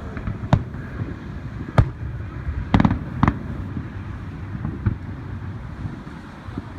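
Fireworks going off: several sharp bangs a second or so apart, with a quick rattle of pops about three seconds in, over a steady low rumble.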